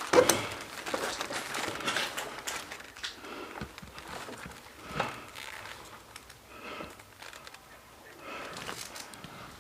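Gear and clothing rustling with footsteps as an airsoft player moves, with a few sharp knocks, the loudest just after the start and another about five seconds in.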